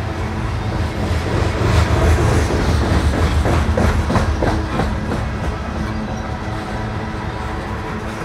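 Heavy CSX coal train rolling past, its wheels clicking over the rail joints under a steady rumble; it grows loudest about two to five seconds in and then eases off.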